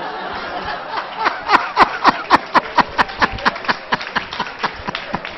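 Hearty laughter: a rapid run of "ha-ha" pulses, about five a second, starting about a second in and fading near the end.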